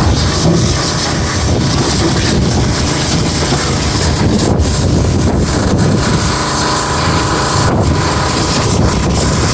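Pressure washer running with a steady, loud rushing noise. A faint steady tone joins about seven seconds in.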